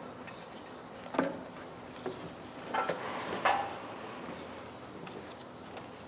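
A few sharp metal clinks and knocks as the discs and plates of a New Holland hay baler's slip clutch are handled and fitted onto its driveshaft: one about a second in, then two close together around three seconds.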